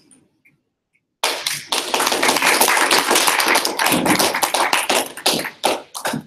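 Small audience applauding: clapping breaks out suddenly about a second in, runs dense for about four seconds, then thins to a few scattered last claps near the end.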